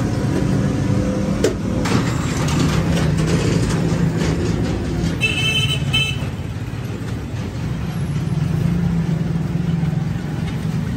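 Street traffic rumbling steadily, with a vehicle horn sounding briefly about five seconds in. A few sharp clicks come in the first two seconds.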